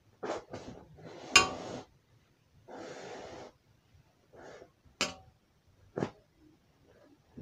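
Handling noise of hand-stitching a sack-backed mat edge: the woven plastic sack crinkles and yarn rasps as it is drawn through with a large-eye needle. Several short rustles, with a sharp crackle about a second and a half in and a longer rasp near the middle.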